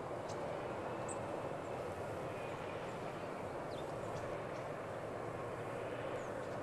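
Steady outdoor background rumble, with a few short, high chirps from small birds scattered through it.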